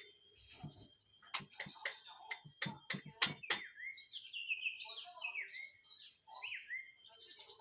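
A quick series of sharp clicks and knocks in the first half. Then a bird calls with a run of repeated falling chirps.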